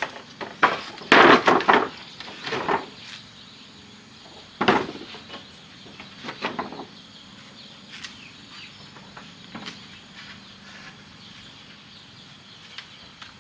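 Irregular wooden knocks and clatter: a quick cluster in the first two seconds, then single knocks, thinning to light ticks after about seven seconds. Insects or birds are faint in the background.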